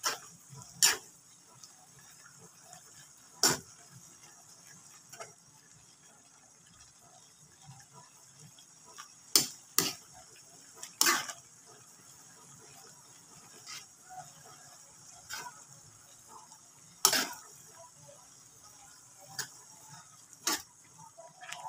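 A metal spatula is clacking and scraping against an aluminium wok while pancit canton noodles are stir-fried. About a dozen sharp knocks come at uneven intervals over a faint steady hiss.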